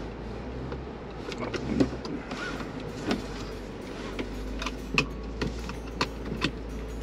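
A Jeep running slowly on an off-road trail, its engine a steady low hum, with sharp knocks and rattles scattered through as it works over rough ground.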